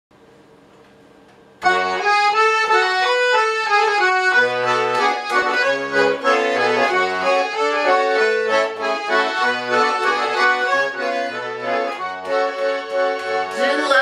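Garmon, a Russian button accordion, playing a folk-song introduction: a melody with low bass notes underneath, starting about a second and a half in. A woman's singing voice comes in at the very end.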